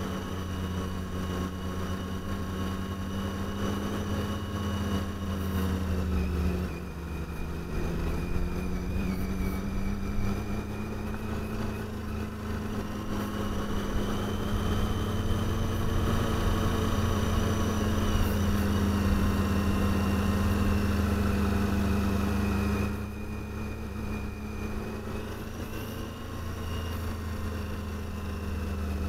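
Motorcycle engine running steadily under way, with wind noise. The throttle eases off about a quarter of the way in and again near the end, and between those the engine pulls steadily harder.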